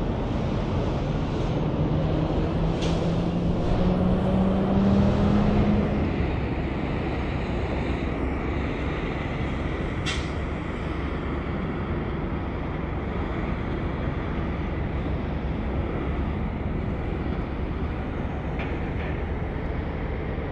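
Heavy truck passing on a highway, its engine note rising over the first few seconds and loudest about five seconds in, followed by steady traffic and tyre noise.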